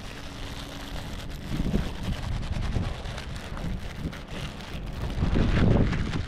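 Wind buffeting the microphone, a rough, uneven rumble that swells in a gust about five seconds in.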